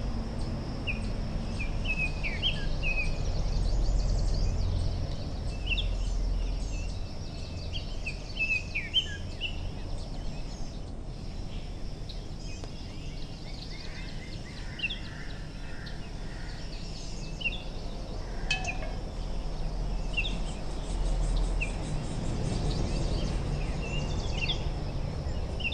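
Birds chirping in short, scattered calls over a low background rumble, with a steady high-pitched hiss underneath.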